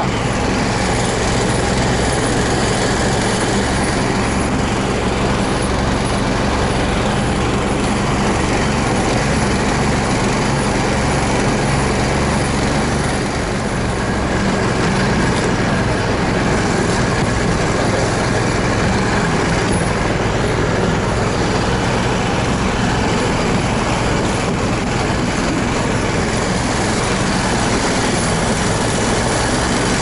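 Motorized snow-towing unit (motor-dog) engine running steadily at travel speed, hauling sleds over a snowy forest track, with wind rushing over the microphone.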